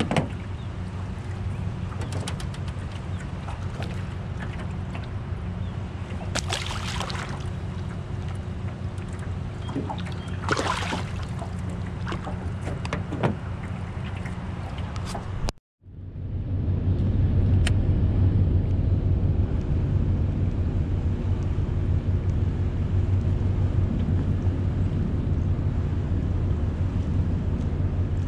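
Steady low rumble of wind on the microphone over moving river water, with a few brief louder noises in the first half. About halfway through the sound cuts out for a moment, then comes back with the rumble louder.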